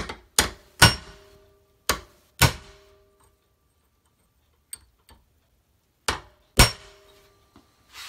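Hammer blows on a steel punch driving a stuck, worn pin out of a Chevy Impala door hinge clamped in a vise. There are seven sharp metallic strikes, mostly in quick pairs, each followed by a brief ring, with a pause of a few seconds in the middle.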